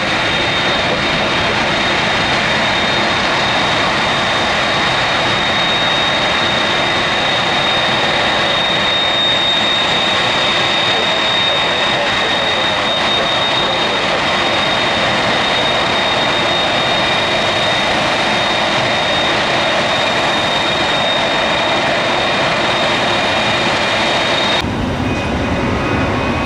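Jet airliner engines running steadily, a broad roar with a high whine on top. Near the end the sound changes abruptly to a lower, duller rumble.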